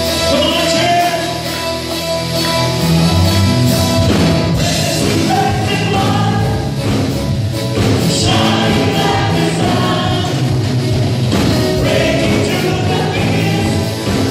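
A live church worship band and group of singers performing an upbeat praise song, several voices singing together over drums, guitar and keyboard, heard loud through a phone in the hall.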